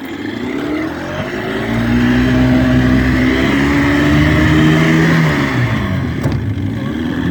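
Boat engine speeding up as the boat pulls away, its pitch rising over the first couple of seconds and holding, then dropping as the throttle eases off about two-thirds of the way through.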